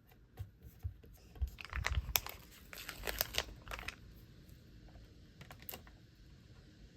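Hands peeling and pressing stickers onto stamps: short crinkly peeling of sticker backing with light clicks and taps. It comes in a cluster about two to four seconds in, with a few lone clicks before and after.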